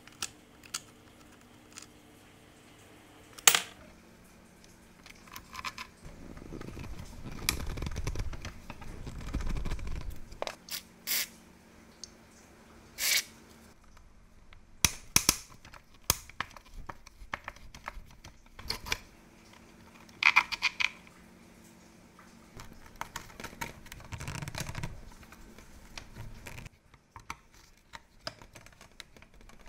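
Scattered clicks, taps and scrapes of small hand tools working on the plastic housing and rusty brush holders of a Bosch PBS 75 belt sander. A few seconds of low rumbling scraping come about a quarter of the way in.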